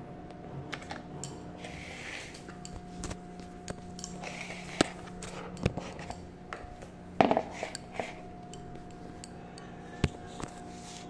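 Scattered clicks and knocks of kitchen containers and dishes being handled on a countertop, with a louder clatter about seven seconds in, over a steady faint hum.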